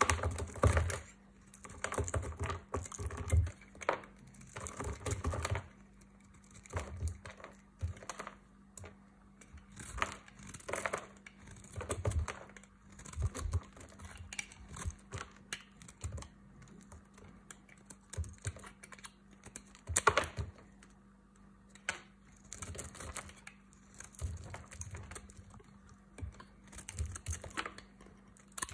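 Snap-off utility knife blade shaving and chipping a dry bar of white soap: crisp, crackly scraping strokes in short runs with brief pauses between, as the dry soap crumbles off. A faint steady hum lies underneath.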